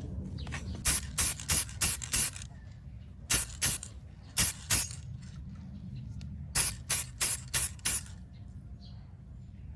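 Aerosol spray can of top coat fired in short bursts: about fourteen brief hisses in four quick runs, five, two, two, then five.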